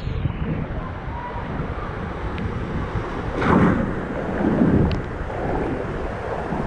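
Rushing water and wind noise as an inflatable tube slides down an open water slide, with water splashing up louder about three and a half seconds in and again about a second later.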